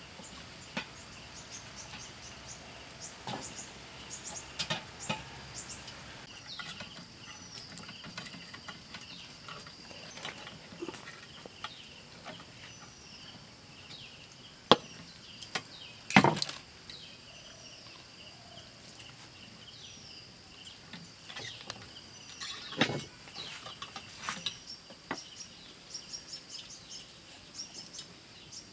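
Scattered knocks and clatter of long metal skewers and a whole roasted goat being handled on a wooden chopping block, the loudest few knocks about halfway through. Behind them is a steady high drone of insects, and a bird repeats a short falling call for a while.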